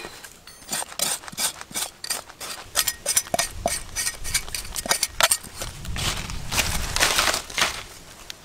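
Large knife scoring a big catfish on a woven basket: a quick run of short sharp clicks and taps as the blade cuts the skin and knocks the basket. It ends with a couple of longer scraping sounds near the end.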